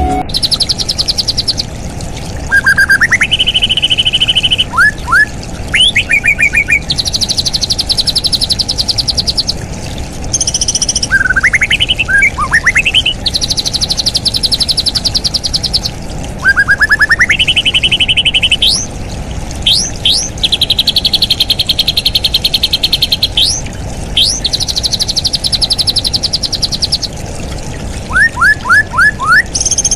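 Straw-headed bulbul (cucak rawa) singing: quick upward-sliding whistled notes alternating with long, fast, buzzy trills, repeated throughout, over a steady background hiss.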